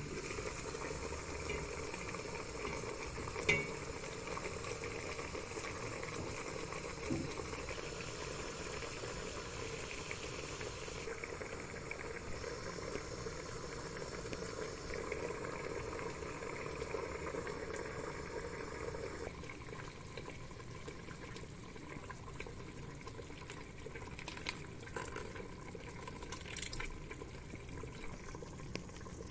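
Ribs boiling in a pot of water: a steady bubbling hiss, with a few light knocks, quieter in the last third.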